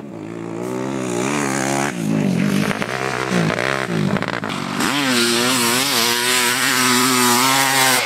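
Honda CR500AF dirt bike's 500 cc two-stroke single-cylinder engine under a rider, growing louder as it approaches, its pitch dropping and rising again and again as the throttle is rolled off and on. About five seconds in it revs up sharply and keeps wavering at higher revs.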